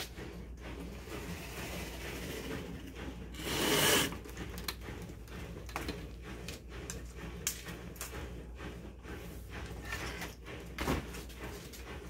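Rubbing and scattered small clicks of things being handled, with one louder scraping rub about three and a half seconds in, over a steady low hum.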